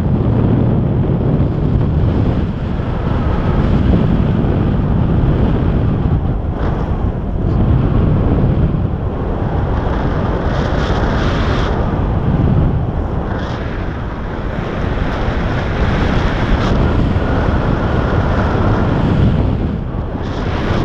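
Airflow buffeting the camera's microphone during paraglider flight: a loud, continuous rush that swells and eases every few seconds.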